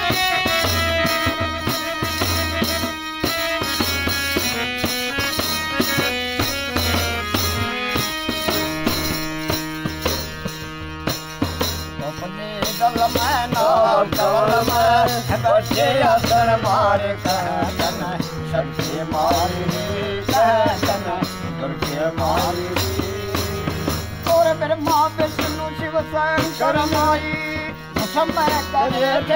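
Hand-pumped harmonium and a jingled tambourine playing a devotional folk tune, with a man's voice singing over them from a little before halfway.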